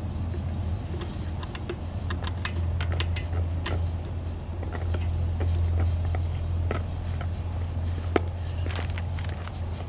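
Light clicks and taps of small hardware being handled while fitting parts onto a post hole digger, with one sharper click about eight seconds in, over a steady low hum.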